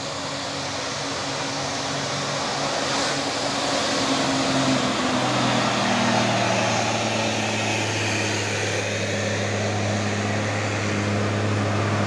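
Diesel engines of large tour buses on a steep climb, a low steady drone that shifts in pitch and grows louder about five seconds in as a bus draws close.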